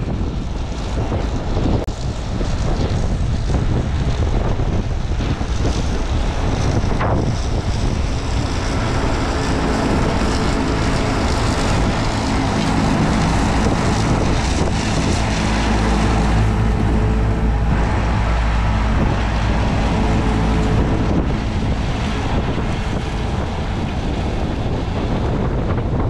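New Holland T7.315 tractor's six-cylinder diesel engine working steadily under load as it pulls a seven-furrow reversible plough, its drone clearest about a third of the way in to about three quarters of the way through, with wind buffeting the microphone throughout.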